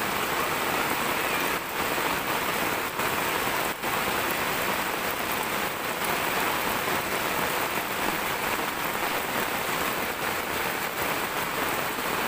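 Heavy rain pouring steadily onto flooded ground, an even hiss with no let-up.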